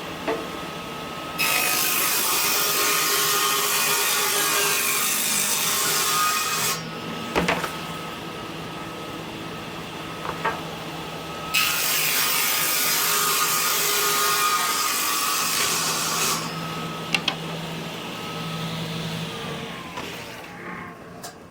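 Table saw ripping plywood strips: the running blade's steady hum turns into loud cutting noise twice, each pass about five seconds long. Near the end the saw is switched off and winds down with a falling whine.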